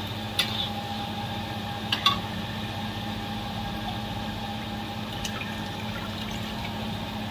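Chicken pieces and onion sizzling in hot oil in a large kadhai, a steady hiss, with two sharp clinks of the metal spatula against the pan, about half a second in and again about two seconds in. A steady low hum runs underneath.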